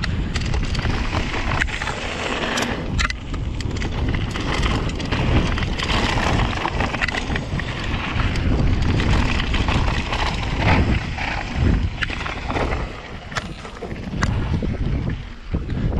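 Rocky Mountain Slayer mountain bike descending a trail: continuous wind buffeting on the microphone and tyre noise over the ground, with many sharp rattles and knocks from the bike over bumps.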